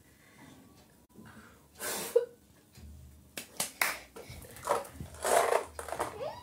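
Faint, scattered handling noises: short rustles and a few light clicks and knocks as people move and pick things up.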